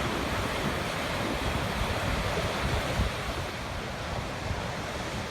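Sea waves breaking and washing on the shore, a steady rushing noise, with wind buffeting the microphone in low rumbles.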